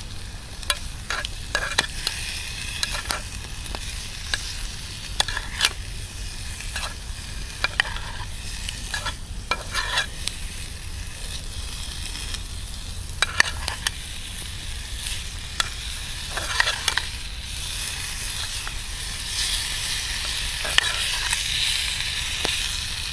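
Cubes of curried luncheon meat frying in a pan on campfire embers: the hot fat sizzles steadily, with many sharp pops and crackles scattered through it. The sizzle grows louder near the end.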